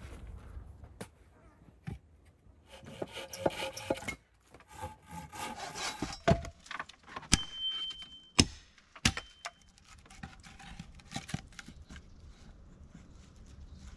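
Logs scraping and rubbing against wood and soil as they are moved and set in place, with a few sharp wooden knocks around the middle.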